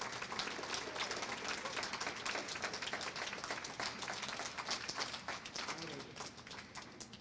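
Audience applauding with dense clapping that thins out to a few scattered claps near the end.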